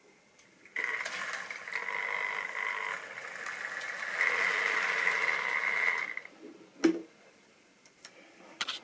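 Model railway locomotive's small electric motor whining with its wheels running on the track; it starts suddenly about a second in, grows louder, and stops about six seconds in. A single sharp click follows, with a few lighter clicks near the end.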